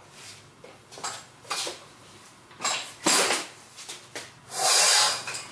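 Metal clunks and scrapes as a Yamaha Jog scooter is manhandled off a workshop stand onto its kickstand. There are several short knocks, and the loudest is a longer scrape about four and a half seconds in.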